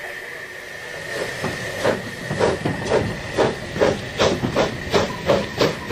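Narrow-gauge steam locomotive chuffing, its exhaust beats starting about a second in and coming closer together as it gathers speed, over a steady hiss of steam.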